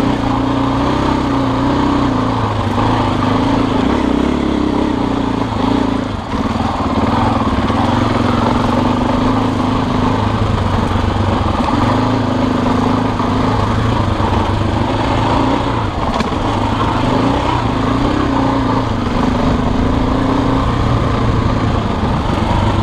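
Husqvarna dirt bike engine running at fairly steady revs on a trail ride, the pitch wavering a little with the throttle and dipping briefly about six seconds in.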